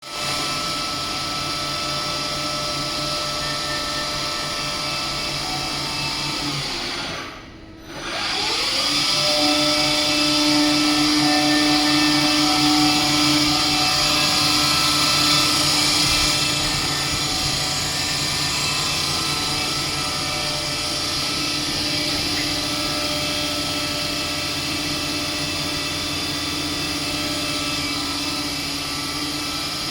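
ACE Super Jobber CNC lathe running, a steady motor-and-spindle whine with several held tones over a hiss. It cuts out briefly about seven seconds in, then comes back with a short rising whine before settling steady again.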